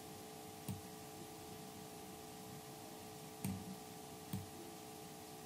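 A few soft computer mouse clicks, spaced a second or more apart, over a faint steady electrical hum.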